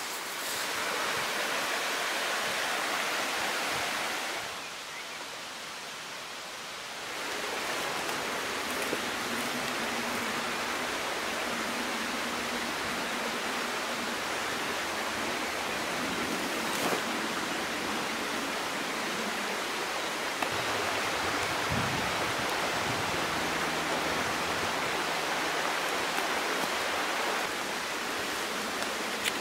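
Steady rushing of a forest stream, with a quieter stretch about five seconds in.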